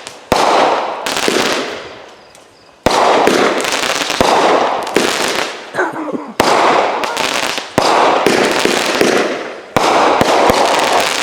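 Consumer fireworks going off: about five sharp bangs a second or two apart, with a lull after the first. Each bang is followed by a second or more of dense crackling.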